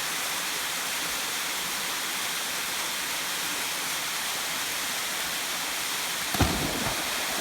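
Waterfall rushing steadily, with a brief louder sound about six seconds in.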